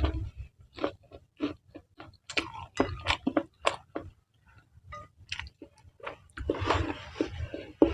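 Close-miked chewing of soft, wet noodles: a quick run of small moist clicks and smacks, about two to three a second, with a denser, noisier stretch of eating near the end.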